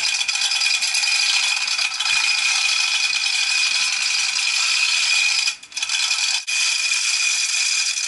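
Manual chain hoist being worked to lift a gearbox: the steel chain rattles steadily through the hoist, breaking off briefly about five and a half seconds in.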